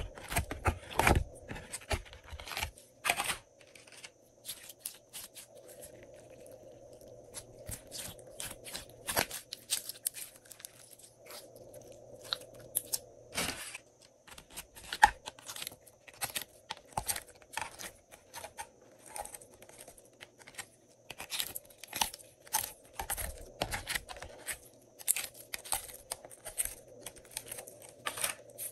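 Glossy slime being squeezed, pulled and pressed by hand, giving an irregular run of sticky crackles and pops.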